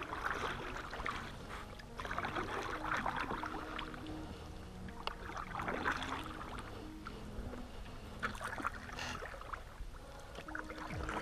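Wooden oars rowing a small boat through calm water, a splashing stroke about every three seconds.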